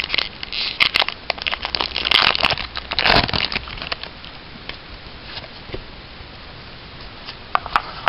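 A Pokémon trading-card booster pack's foil wrapper crackling and crinkling as it is torn open by hand. The crackling is busiest for the first three and a half seconds, then dies down to a few faint clicks near the end.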